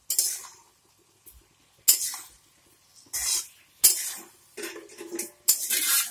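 Metal spatula scraping against a metal kadhai as sliced onions frying in oil are stirred, in about six short strokes roughly a second apart, coming closer together near the end.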